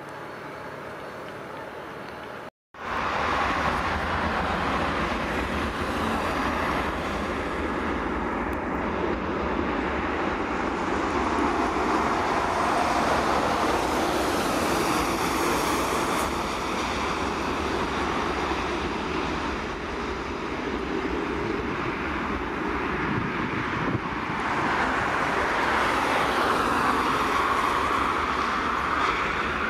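Jet engine roar from an Airbus A330-223's Pratt & Whitney PW4168 turbofans at takeoff power as the airliner rolls down the runway and lifts off. It is quieter at first, drops out completely for a moment about two and a half seconds in, then runs loud and steady.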